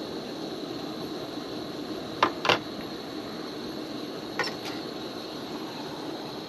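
Metal cooking pot being handled, giving sharp clinks in two pairs about two seconds apart over a steady background hiss.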